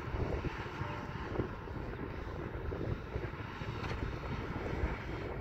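Side-by-side UTV engine running at low speed as the machine crawls over rock, heard as a steady low drone from a distance.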